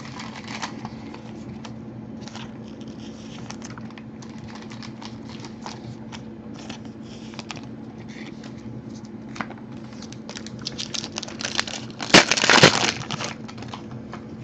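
Trading cards and their plastic sleeves or pack wrappers being handled: scattered light clicks and rustles, then a louder crinkling burst about twelve seconds in.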